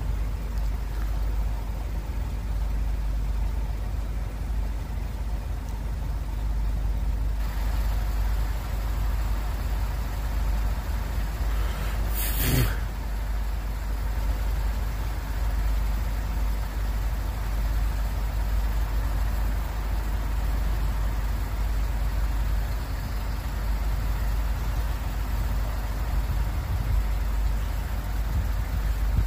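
Road traffic running steadily, with a constant low rumble, and one short sharp noise about twelve seconds in.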